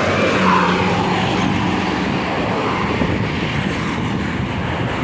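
A large tour bus driving past close by: engine and tyre noise, loudest about half a second in, with a steady low engine note in the first couple of seconds.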